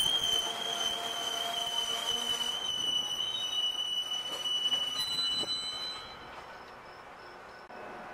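A train's steel wheels squealing on the rails: one steady, high-pitched squeal over the rumble of the passing train, which cuts off about six seconds in.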